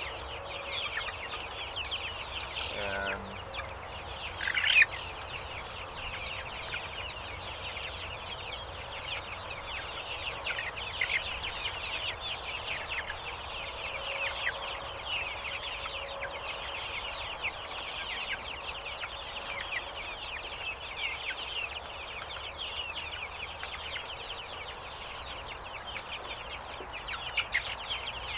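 A flock of young chickens peeping continuously, many short falling chirps, with one louder chirp about five seconds in, over a steady high-pitched insect trill.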